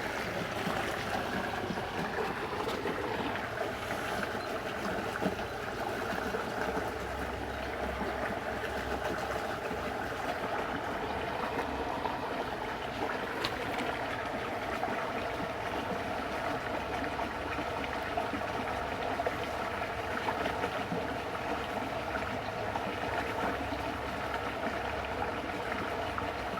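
Water in a ditch running with a steady, even rushing.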